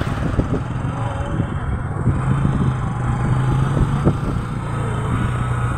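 Motorcycle engine of a tricycle running steadily on the move, heard from inside the sidecar, with road noise and scattered knocks and rattles. The engine note rises a little about two seconds in.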